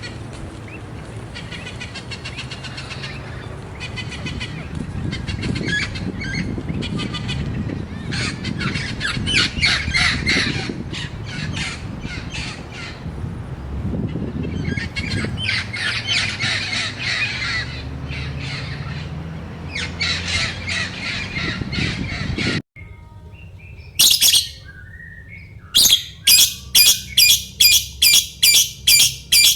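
Many birds chirping and calling over a steady background hiss. Near the end, after an abrupt cut, a single bird gives a sharp, high call repeated evenly about two to three times a second.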